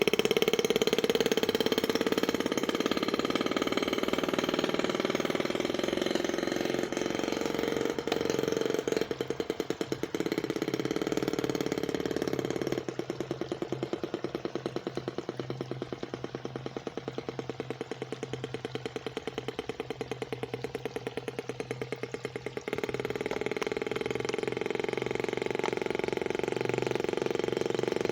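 Small gas engine of a radio-controlled model boat running steadily. Its sound drops for about ten seconds midway, then comes back up.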